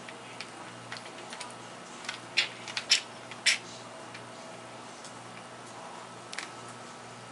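Plastic clicks and clacks of a Rubik's cube being turned by hand, scattered through, with a quick run of louder clacks in the middle.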